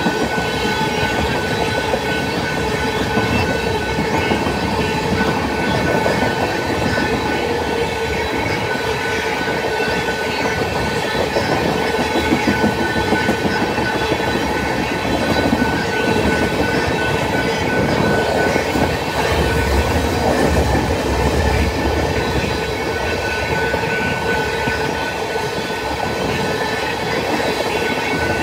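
Freight train of loaded tank cars rolling past on steel rails, the wheels clattering steadily over the track, with a steady high-pitched ringing tone over the rumble.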